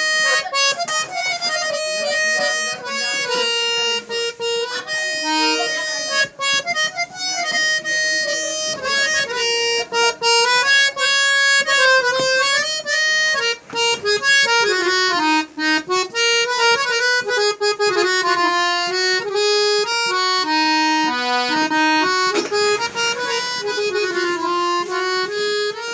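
Harmonium playing a continuous melody, the notes changing quickly, with a few sliding pitches in the lower part.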